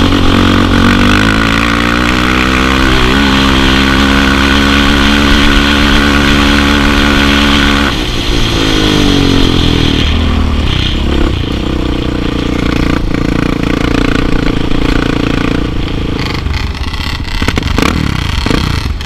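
Sport quad's engine running hard under the rider, held at high revs with the pitch wavering and climbing. About eight seconds in the throttle eases and it settles to lower, steadier revs, with a few short blips near the end.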